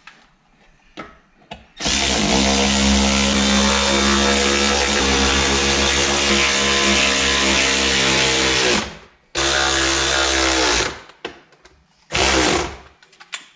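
Handheld power tool's motor whining as it drives fasteners, in three runs: a long one of about seven seconds starting about two seconds in, a shorter one of about a second and a half, and a brief burst near the end, each spinning up and down.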